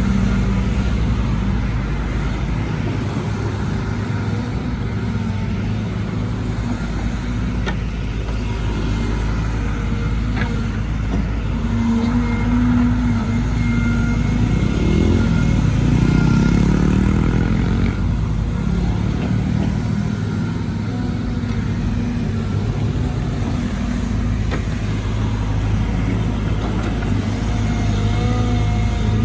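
Caterpillar 313GC excavator's diesel engine running steadily under working load as it digs, its pitch swinging up and down around the middle, with a couple of faint knocks.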